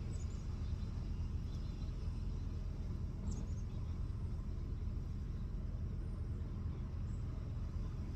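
Steady low rumble with no breaks, with a few faint, short high chirps.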